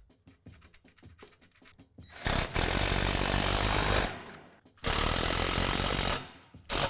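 Small metal clicks as fastener hardware is handled. Then a RIDGID cordless driver drives a bolt and nut home in two runs of about two seconds each, with a brief third spin near the end.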